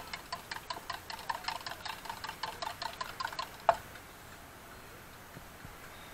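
A metal spoon beating quickly inside a small steel mug, making a fast even run of ringing clicks, about five or six a second. About three and a half seconds in the beating stops with one louder knock as the mug is set down, leaving a low steady hiss.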